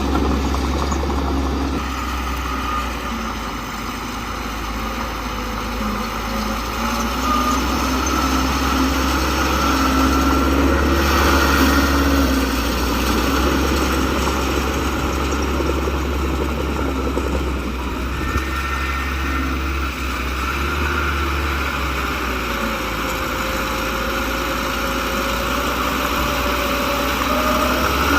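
Heavy diesel engine of earthmoving machinery running steadily with a deep low hum, its pitch shifting slightly as the machine works.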